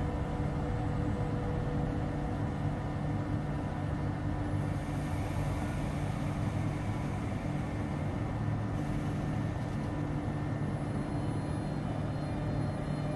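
Electric high-speed train standing at the platform, a steady low hum with a few steady tones from its on-board electrical equipment.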